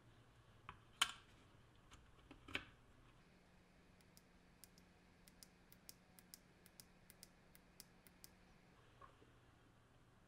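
A few knocks, then a run of about fifteen small, sharp clicks over roughly four seconds. This is the tactile push-button on a Milwaukee M18 impact driver's speed-selector circuit board being pressed repeatedly to test the repaired speed-selection button.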